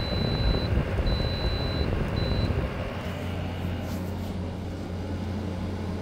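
Frigidaire window heat pump running in heat mode, a steady machine rumble with a thin high-pitched tone that cuts in and out. About halfway through the heavy rumble drops away, leaving a steady low hum.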